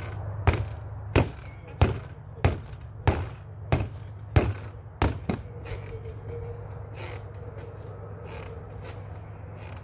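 Gloved punches landing on a freestanding reflex bag, a sharp smack about every two-thirds of a second, stopping a little over five seconds in. A steady low background rumble runs underneath.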